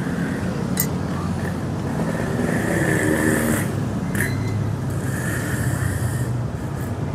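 Steady road traffic noise from a busy street, with motor vehicles swelling past twice, and a couple of short clicks of a spoon against a plate.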